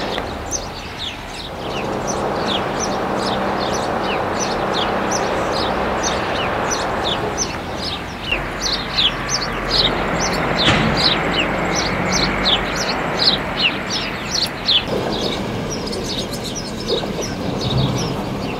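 Small birds chirping busily, many short high chirps a second, over a steady background rush.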